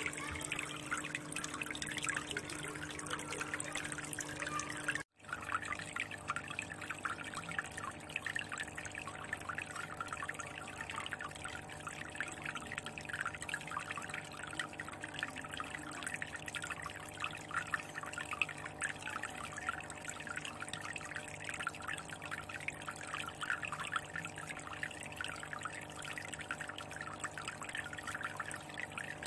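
Aquarium water trickling and splashing steadily, like a filter or spout outflow falling into the tank, with a faint steady hum underneath. The sound cuts out for an instant about five seconds in, then carries on.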